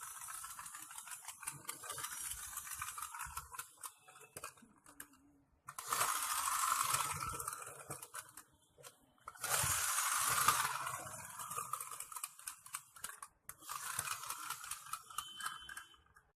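A small friction-powered toy aeroplane running: its flywheel gearing whirs and rattles with fast clicking, in several spells as it is pushed and let go. The loudest spells are about six and ten seconds in.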